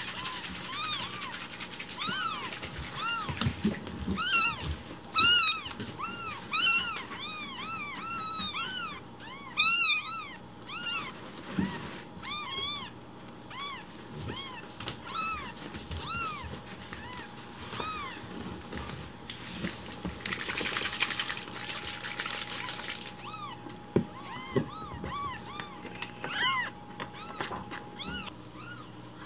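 Newborn kittens mewing loudly and over and over, a rapid run of short high rising-and-falling cries that thins out into scattered calls: hungry cries demanding their milk. A brief rustling hiss about twenty seconds in.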